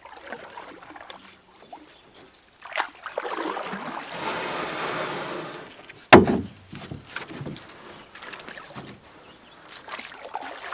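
Kayak paddling on a creek: paddle strokes splashing and water sloshing, with a rushing splash for a few seconds in the middle. About six seconds in, a single sharp hollow knock, the loudest sound.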